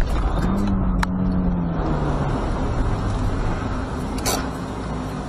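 Road and engine noise of a car driving on a winter road, heard from inside the car through a dashcam. A low steady drone runs for about two seconds near the start, and a short knock comes about four seconds in.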